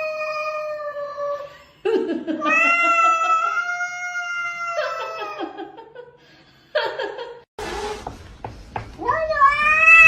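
A cat yowling: two long, drawn-out calls held steady for two to three seconds each, then a short one. Near the end come more yowls that rise and fall in pitch.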